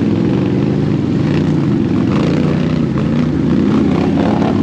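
ATV engine running at steady revs, loud and close.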